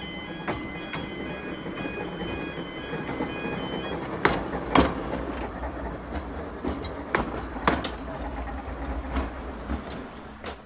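Narrow-gauge electric tram passing close by: a steady low rumble, with the wheels giving sharp clacks and knocks over the rail joints from about four seconds in. A short chiming tune plays and stops about four seconds in.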